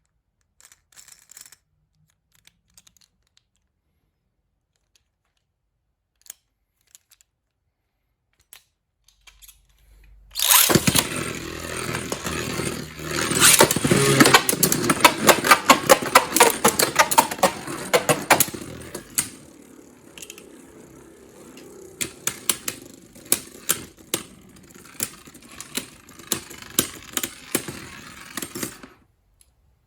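Beyblade Burst spinning tops launched into a stadium about ten seconds in, whirring and clashing with rapid clicks and knocks. The clashing is loudest for the first several seconds, then settles to occasional sharp hits until the spinning stops near the end. Before the launch there are only a few faint clicks.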